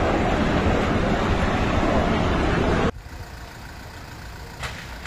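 Steady rushing roar of a gas fire burning at an oil-well drilling rig, cut off suddenly about three seconds in. Quieter street sound with vehicles idling follows.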